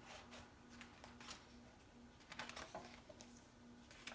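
Near silence with a few faint soft rustles and taps of a large picture book's paper pages being turned by hand.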